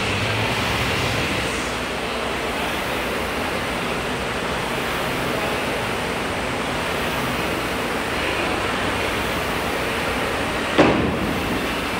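Concept2 rowing machine's air-resistance flywheel whooshing steadily under hard, continuous strokes, with one sharp knock near the end.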